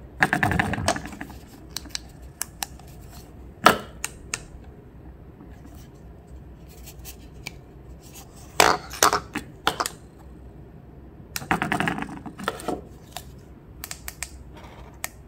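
Hard plastic clicks, taps and rattles from handling the units of a wireless LED turn-signal set and pressing their buttons, with three short bursts of rattling: near the start, about nine seconds in and about twelve seconds in.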